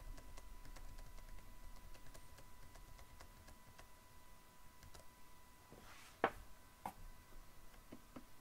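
Computer keyboard keys tapped in a quick run of light clicks, then a few louder separate clicks about six and seven seconds in. A faint steady thin tone runs underneath.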